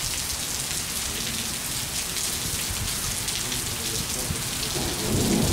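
Heavy rain pouring steadily onto pavement, with a low rumble of thunder beginning near the end.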